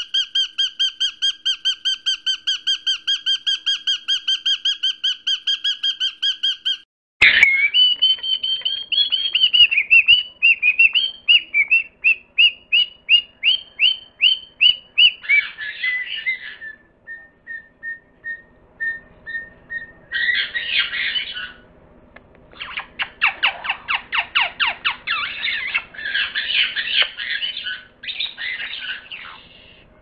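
Parrot calls: a fast, even trill of pulsed notes for about seven seconds. After a sharp break comes a string of falling chirps, then a run of short whistled notes, and harsh squawks and rasps over the last ten seconds.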